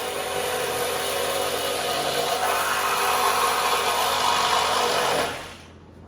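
Reciprocating saw running and cutting through steel, a steady, loud, rasping tool noise that winds down and stops about five seconds in.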